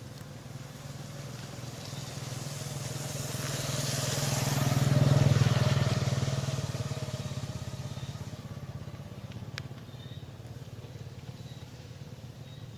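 A motor vehicle passing by: its engine hum swells to the loudest point about five seconds in, then fades away.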